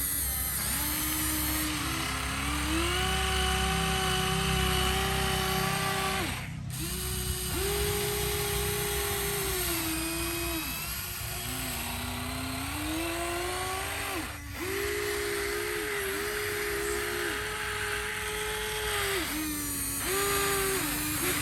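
Electric motors of a radio-controlled toy construction machine whining as they are driven, the pitch stepping and gliding up and down as the controls are worked, with two short breaks where the motors stop.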